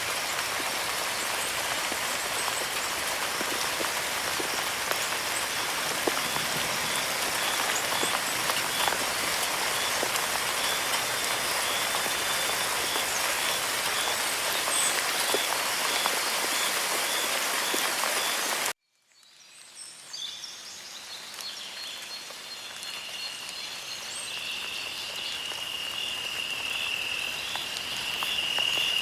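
Food sizzling and crackling in hot oil, a dense steady hiss with scattered pops, which cuts off abruptly about two-thirds of the way in. A quieter stretch follows, in which a high steady whistling tone grows louder toward the end.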